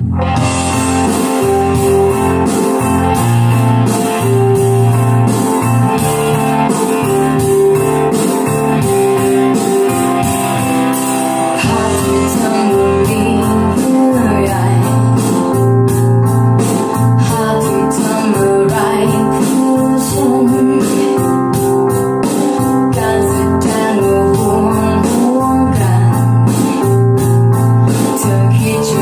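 Music with keyboard and a steady beat played loud through a PA power amplifier and loudspeakers, as a demonstration of the amplifier's sound. The track starts at the very beginning.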